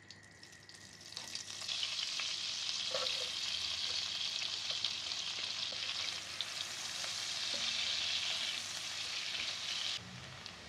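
Food sizzling in hot oil in a pan: the sizzle swells up about a second in and holds steady, with scattered small pops and spatters, then drops off suddenly near the end.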